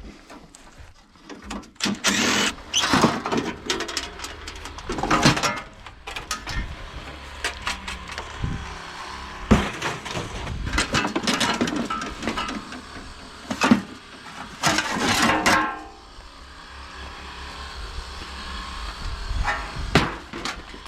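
Metal clanks and rattles from hand work on scrap air-conditioner parts, several loud bangs among them, over a steady low engine-like rumble.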